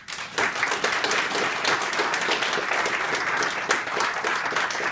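An audience applauding: a few scattered claps right at the start, then the whole room clapping steadily and densely.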